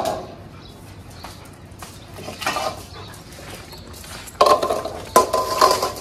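Stainless steel dog food bowls clanking as they are set down on a tiled floor, with two loud ringing clanks about a second apart in the second half.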